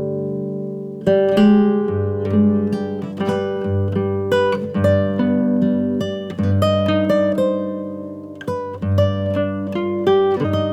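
Acoustic guitar music: plucked and strummed notes and chords ringing out, with a sustained chord fading at the start and new phrases from about a second in.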